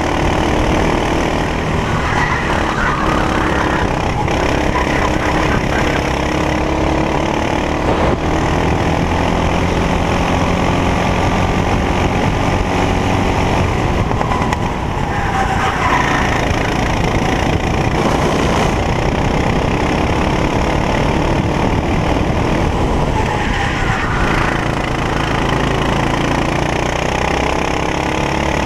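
Racing kart engine at full race speed, heard onboard. Its pitch rises and falls over and over as the kart brakes for corners and accelerates out of them.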